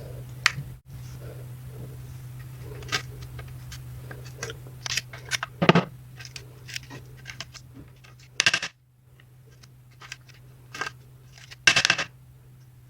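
Clicks, clinks and scrapes of hard kitchen items being handled, over a steady low hum, with louder clatters about six, eight and a half and twelve seconds in.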